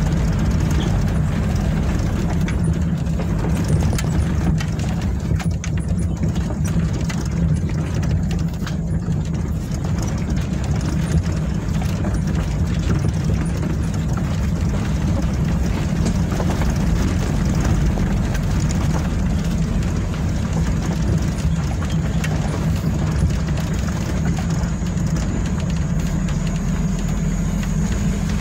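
Vehicle engine running steadily while travelling, a continuous low drone with road and rattle noise over it.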